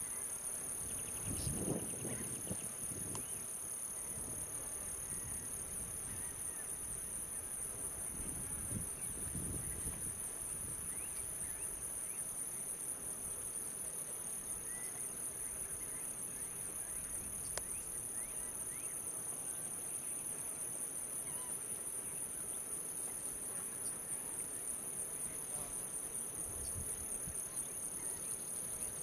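Steady, high-pitched chorus of insects, an unbroken shrill trill. A low rumble comes twice, about two seconds in and again around nine seconds, and a single sharp click a little past halfway.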